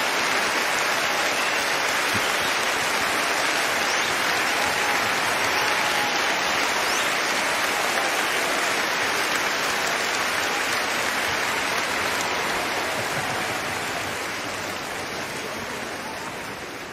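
Large concert audience applauding in a standing ovation: a dense, steady roar of clapping that eases a little near the end.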